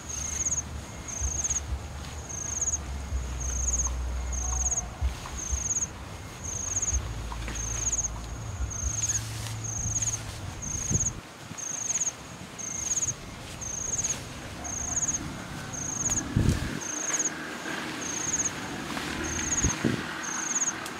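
An insect chirping in a steady high-pitched rhythm, one short chirp a little more than once a second, over the rustling and knocking of a tarp being handled. A low rumble underlies the first half.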